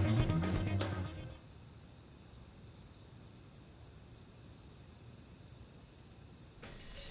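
Drum-and-guitar music breaks off about a second in, giving way to a faint hiss with a single cricket chirping once about every two seconds. Louder sound comes back near the end.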